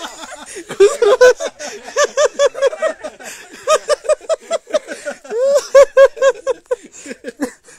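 A person laughing hard and close, in two long runs of rapid high-pitched 'ha-ha-ha' bursts, about four a second, with a catch of breath between them.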